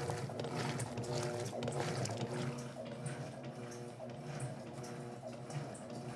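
Electrolux LT12F washing machine agitating a load of floor cloths: a steady motor hum with water sloshing and churning in the tub.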